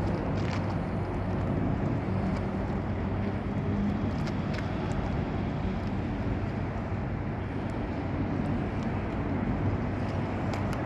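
Steady low motor hum under a constant outdoor background rumble, with a few faint clicks.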